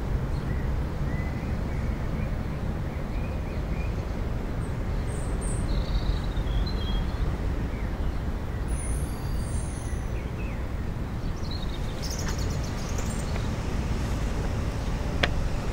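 Outdoor park ambience: a steady low rumble of distant traffic with a few bird chirps in the middle, and a single sharp click near the end.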